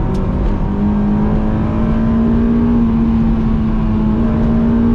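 Honda S2000's JDM F20C four-cylinder engine pulling steadily under way, heard from inside the cabin with the soft top up; its pitch rises a little about a second in, then holds.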